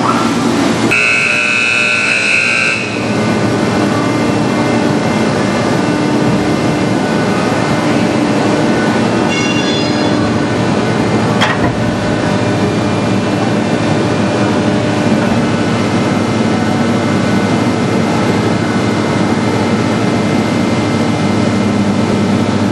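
Horizontal baler running: the hydraulic power unit, driven by a 50-hp three-phase electric motor, makes a loud, steady machine drone with a hum. A high steady tone sounds for about two seconds near the start, and there is a single sharp click about eleven seconds in.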